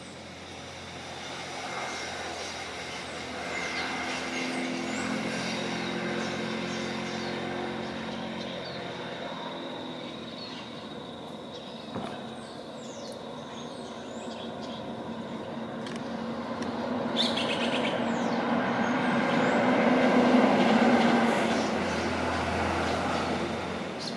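Motor vehicle engine noise passing by, swelling and fading, loudest near the end. Short high bird chirps sound over it.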